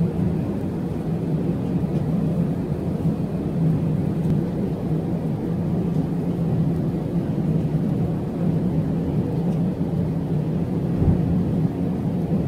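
Steady cabin noise inside an Airbus A380 during the climb: the four-engine airliner's engines and rushing airflow make a low drone with a hum.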